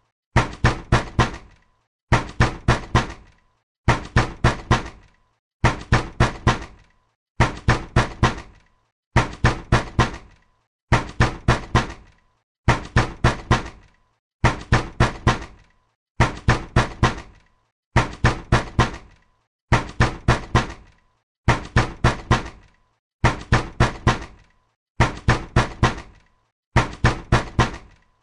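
Heavy, angry pounding on a door, in rapid sets of four knocks. Each set repeats about every second and three-quarters in an unbroken, even rhythm, with a short decay after each set.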